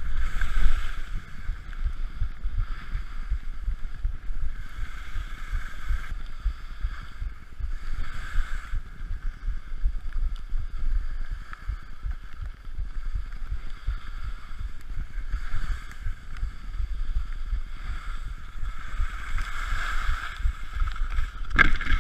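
Wind buffeting an action camera's microphone as a skier runs downhill, with the hiss and scrape of skis on snow swelling and fading every few seconds through the turns.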